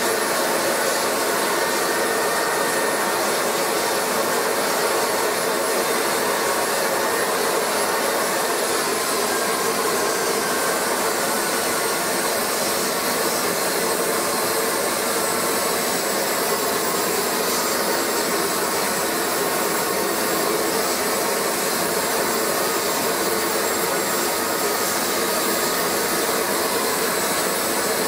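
Home-built KJ66 model gas turbine (jet engine) running: a loud, steady rush of exhaust and airflow with a thin high-pitched whine, which drops in pitch about nine seconds in and then holds steady.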